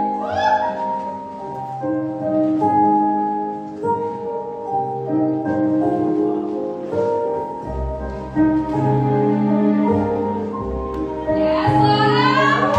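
Slow dance music with sustained keyboard chords; a deep bass comes in a little past halfway, and high gliding vocal notes rise over it near the end.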